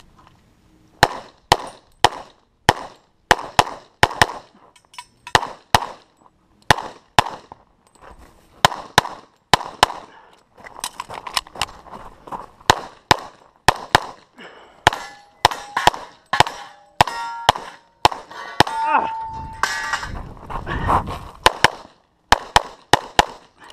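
STI 2011 pistol firing a fast string of shots, mostly in quick pairs, through a practical-shooting stage, with steel targets clanging and ringing when hit in the second half.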